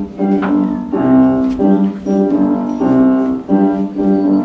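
Piano playing a song's introduction, chords struck at a steady pulse of about two a second.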